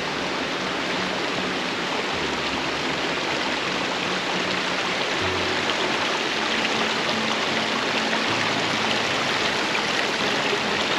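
Waterfall water rushing in a steady even roar, with soft background music playing low underneath.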